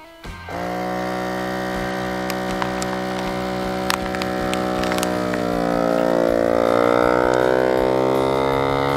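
Inkbird Plus vacuum sealer's pump starting about half a second in and running with a steady motor hum as it draws the air out of a bag around a rack of ribs. About halfway through, the hum grows louder and shifts in pitch as the bag pulls tight and the vacuum builds.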